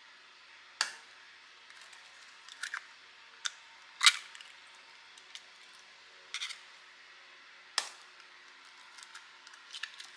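An egg tapped again and again against the rim of a stainless steel mixing bowl as it is cracked, making a series of sharp, separate clicks and knocks, the loudest about four seconds in. Under them is a faint steady hum.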